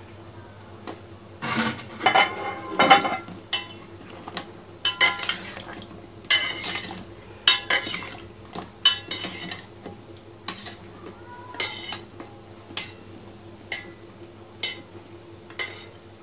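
Metal spoon clinking and scraping against a metal pot as fried balushahi are turned in warm sugar syrup: irregular sharp clinks and scrapes, about one a second.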